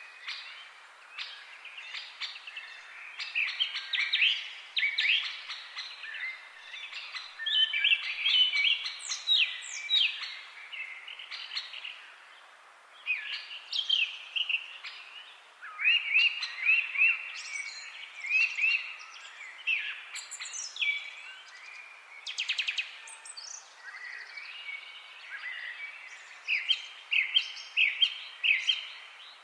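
Several songbirds chirping and singing, short rapid trills and whistled notes overlapping almost without pause, over a faint steady background hiss.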